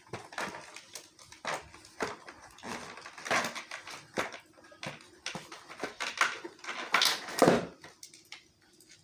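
Toy packaging being handled as an action figure is pulled out of its box: irregular rustling, crinkling and scraping, loudest about seven seconds in.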